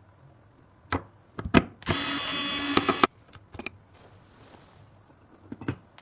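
A small electric screwdriver whirring steadily for about a second, driving a screw, between sharp clicks and taps of computer parts being fitted together.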